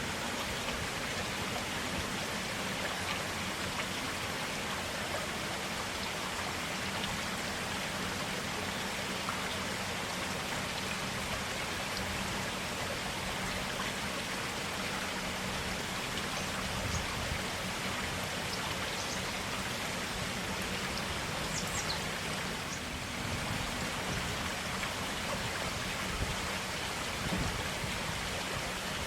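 Forest stream flowing steadily: an even, unbroken rush of running water.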